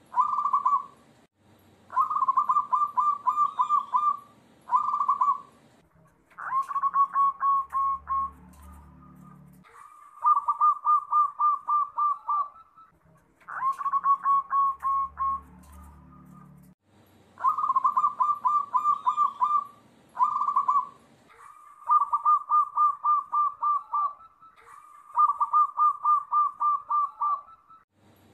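Zebra doves (perkutut) cooing, about ten phrases of rapid pulsed coos, each a second or two long with short pauses between. The calls are combined into one lure recording meant to draw other perkutut to sing.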